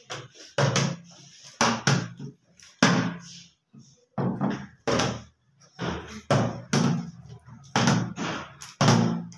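Repeated thuds of plastic water bottles being flipped and landing on a wooden tabletop, a sharp knock every second or so, each dying away quickly.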